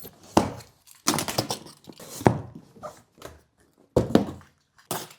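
Cardboard shipping box being opened and its contents handled: irregular thumps, scrapes and rustling of cardboard and packing.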